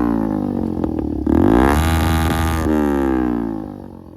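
Single-cylinder motorcycle with a loud aftermarket SC Project exhaust being revved: the note sinks from one rev, climbs again about a second in for a second rev, then falls back and fades near the end.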